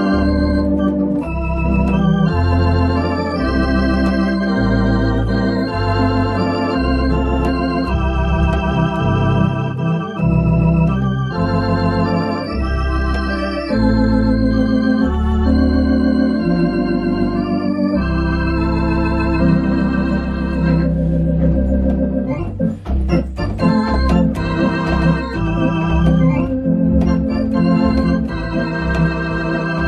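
Baldwin electronic organ playing an old popular tune: sustained chords with vibrato over a moving bass line.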